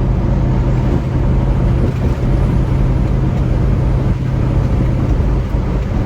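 Semi truck running down the highway, heard from inside the cab: a steady low engine drone with even road noise.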